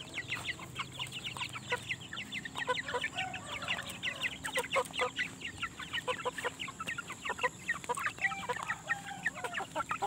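Chickens clucking, with many rapid short, high-pitched peeps overlapping throughout.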